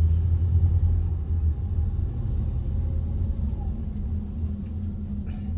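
Steady low rumble of a car's engine and road noise heard from inside the cabin as the car drives in traffic.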